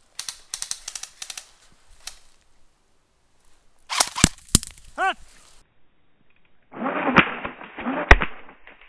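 Airsoft gunfire: a quick run of sharp snapping shots, then a few louder cracks about four seconds in followed by a brief whistling tone. From about seven seconds the sound turns duller and muffled, with heavy thuds over a hiss.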